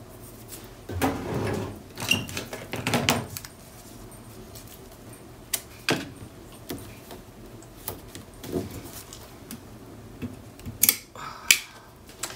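Handling noise as a small closure magnet is taped into a cardstock album page: rustling of paper and tape about one to three seconds in, scattered light taps, and two sharp clicks about a second apart near the end.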